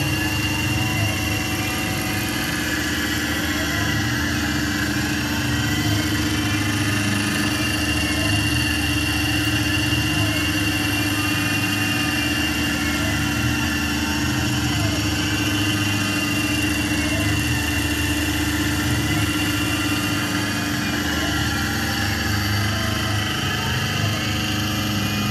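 Milling machine running: the spindle turns an end mill cutting a pocket into a metal knife part under flood coolant. The steady machine hum carries a whine that rises and falls every few seconds.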